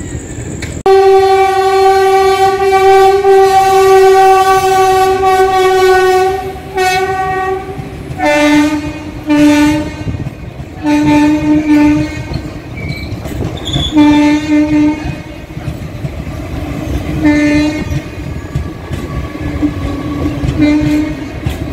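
Train horns: one long steady blast of about six seconds, then a lower-pitched horn sounding short blasts, mostly in pairs, at intervals of a few seconds. Under the later blasts, ICF passenger coaches roll past with wheel clatter over the rail joints.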